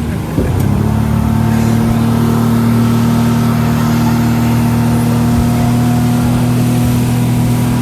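Motorboat engine that opens up about half a second in, then runs loud and steady at speed.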